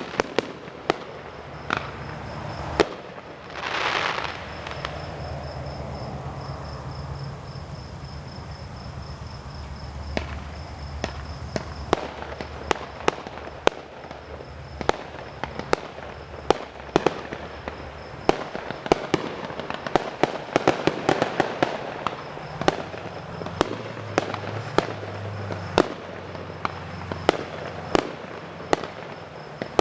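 Fireworks going off: a steady run of sharp bangs and pops, with a rushing hiss about four seconds in and denser crackling in the second half.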